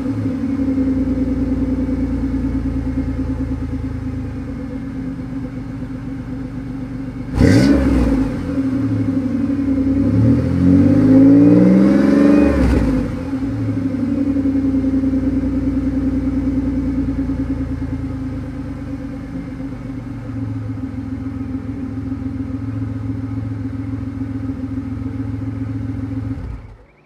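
A 2003 Chevy Monte Carlo SS's 3800 Series II V6 is idling through Flowmaster 40 series mufflers with a resonator, heard at the quad exhaust tips. It blips sharply about seven seconds in, then revs up and down several times in quick succession around ten to thirteen seconds in, and settles back to a steady idle. The sound stops abruptly near the end.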